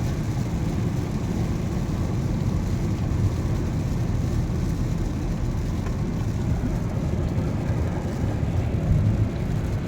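Steady low rumble of a moving car heard from inside the cabin: engine and tyre noise while driving on rain-soaked roads.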